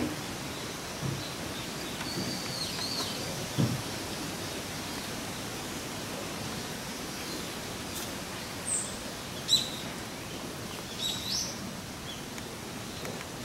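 Steady outdoor background hiss with a few short, high bird chirps scattered through it, and a couple of soft low thuds.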